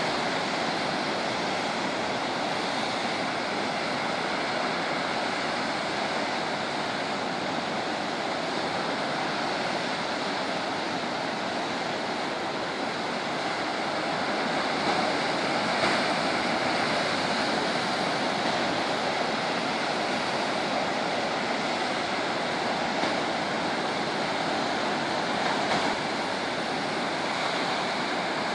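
Ocean surf breaking and washing over a rocky shore: a steady rush of waves that swells slightly about halfway through.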